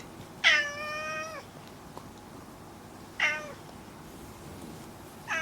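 Domestic cat meowing three times: a long meow about half a second in, a short one around three seconds, and another starting near the end. Each call dips in pitch at its start and then holds steady.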